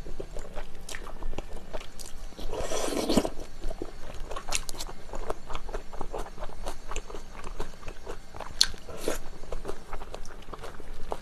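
Close-miked eating of wide, chewy Chinese glass noodles: a slurp about two and a half seconds in, then wet chewing with many sharp mouth clicks and chopsticks picking at the noodles in the bowl.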